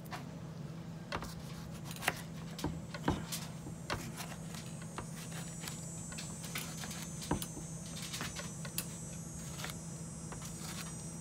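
Small kitchen knife cutting tomatoes: irregular clicks and taps of the blade on a plastic cutting board, over a steady low hum.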